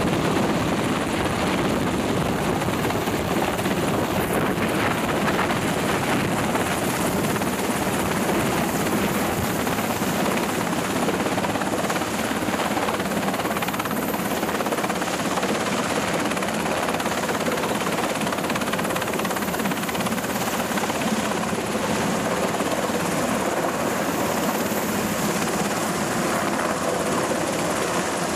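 MH-60R Seahawk helicopter's twin turboshaft engines and main rotor running loud and steady as it lifts off a ship's flight deck and hovers overhead.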